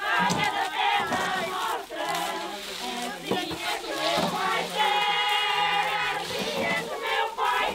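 A group of voices singing a traditional Portuguese folk song together, with several voices overlapping and one long held note about five seconds in.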